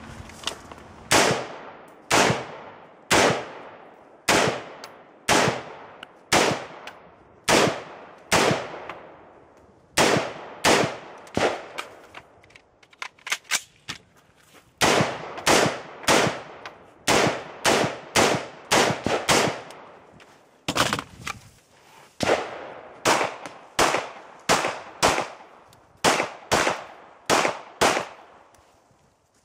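Rapid semi-automatic gunfire from an AR-style rifle and, near the end, a pistol: dozens of sharp shots, mostly in quick pairs, each trailing off briefly. About halfway through there is a short lull filled with fainter knocks.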